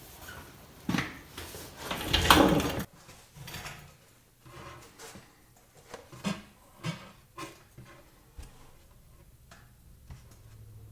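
Knocks and clatter of a metal workpiece and tools being handled at the welding bench, with a louder scraping rustle about two seconds in and several single taps later on. Near the end a low steady hum starts.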